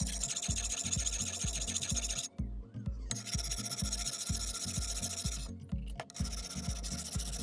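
Steel knife blade rubbed flat against a coarse sharpening stone held in a vise: a gritty scraping in three long strokes, with a brief pause between each. A steady low music beat runs underneath.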